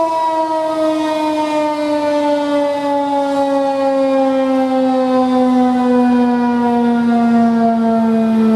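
Federal Signal 2001-DC civil defense siren winding down at the end of its three-minute alert signal, one loud tone sliding slowly and steadily lower in pitch.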